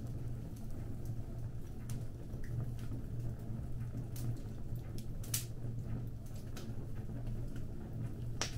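Fire crackling: irregular sharp pops and snaps over a low steady rumble, with the loudest snap about halfway through.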